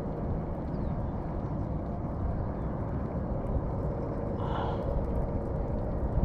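Open-air ambience on the river: a steady low rumble of wind and water with a steady faint motor hum that fades near the end, and one brief higher-pitched sound about four and a half seconds in.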